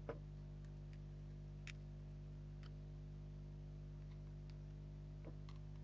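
Flush side cutters snipping off the excess leads of through-hole components on a circuit board: a scattered series of small, sharp clicks, the loudest right at the start and another about five seconds in, over a steady low electrical hum.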